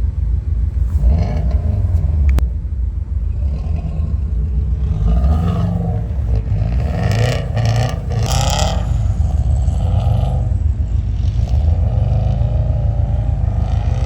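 Subaru WRX's turbocharged flat-four engine running as the car drives through snow, its note rising and falling with the throttle, with a stretch of louder rushing, scraping noise about seven to nine seconds in.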